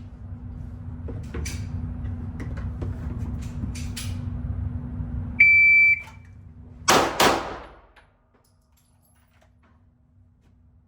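A shot timer's start beep, one loud steady tone lasting about half a second, then about a second and a half later two pistol shots fired in quick succession, about a third of a second apart: a draw and two-tap. Before the beep there is a low rumble with scattered light clicks.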